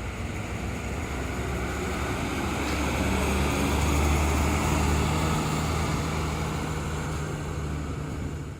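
Large tour coach's diesel engine running as it drives past, a low rumble that grows louder to a peak about four seconds in and then eases off.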